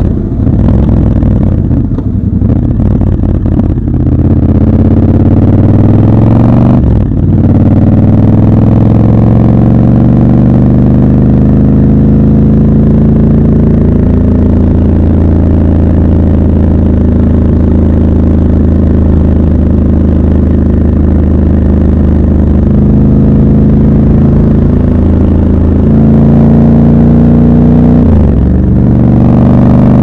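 Triumph Scrambler 1200 XC's 1200 cc parallel-twin engine pulling under way: it rises in pitch, breaks briefly for a gear change about seven seconds in, then runs at a steady pitch before another brief break near the end.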